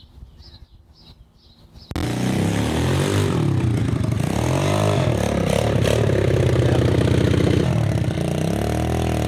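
Pit bike engine running and revving, its pitch rising and falling several times; it comes in suddenly about two seconds in after a quiet start.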